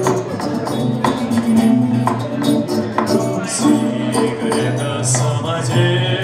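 Instrumental introduction of a song: music with a regular beat and no singing yet.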